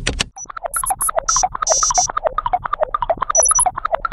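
A fast run of short electronic bleeps, about seven a second, wavering up and down in pitch, with higher chirping blips now and then: a synthesized computer-processing sound effect.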